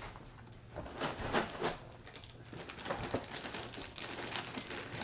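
Cereal box's plastic inner bag and cardboard crinkling and rustling in irregular bursts as the box is folded shut, loudest about a second and a half in.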